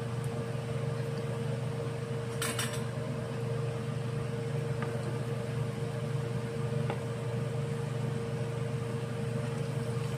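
Pisang molen, bananas wrapped in dough, deep-frying in a wok of bubbling oil. A perforated metal ladle clatters against the wok once, about two and a half seconds in, with a few lighter clinks later as it stirs. A steady hum runs underneath.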